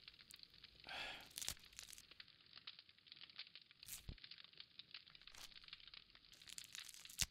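Faint tearing and crinkling of leafy greens being stripped and torn by hand, with many small scattered snaps and a couple of sharper clicks, one about four seconds in and one near the end.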